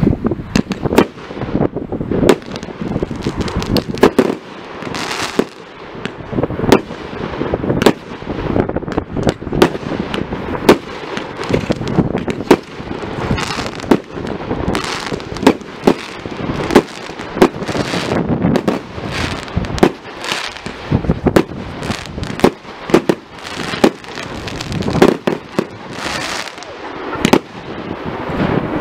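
Fireworks display: aerial shells bursting in an unbroken run of sharp bangs, often several a second, with hiss and crackle between them.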